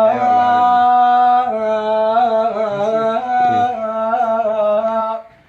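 A man singing one long held note in Iraqi style, with the pitch wavering in ornaments along the way. The note breaks off about five seconds in.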